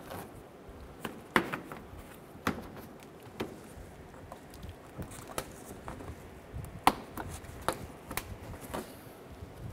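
Plastic wheel-well liner and push pins being pressed into place against the bumper: a string of sharp plastic clicks and knocks at irregular intervals, with handling rustle between them.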